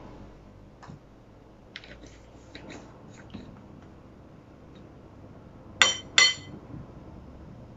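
Faint light clicks and scrapes of spoons and a spice jar, then two ringing clinks of a spoon striking the mixing bowl, about a third of a second apart, near the end.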